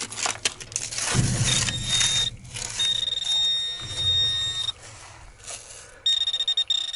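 Metal detector giving a high, steady tone in three stretches of about a second or more, the signal of a buried metal target. There are clicks and rustling near the start.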